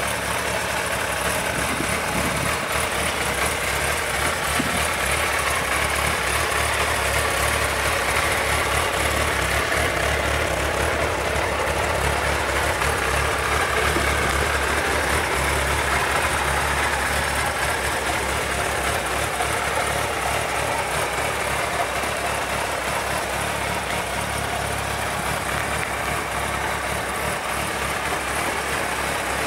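A 1999 Suzuki Hayabusa's 1299 cc inline-four engine idling steadily.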